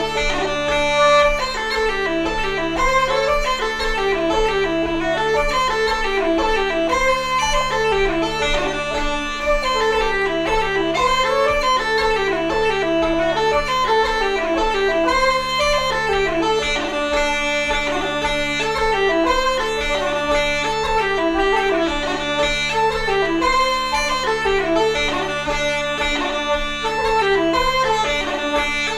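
Irish wooden flute and uilleann pipes playing a jig together in a quick, running melody, with the pipes' drones holding a steady low note underneath.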